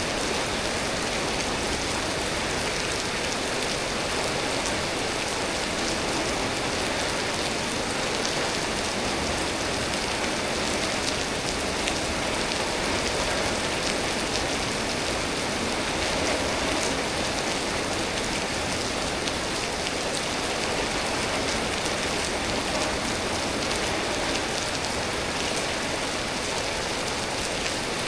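Steady rain falling, an even hiss of rain that neither builds nor eases, from a storm.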